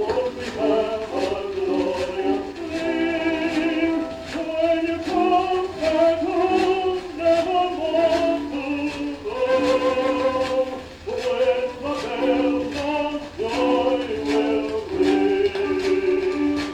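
A 78 rpm record playing a tenor singing with vibrato over instrumental accompaniment, with record surface noise: a low rumble and hiss and a regular light click.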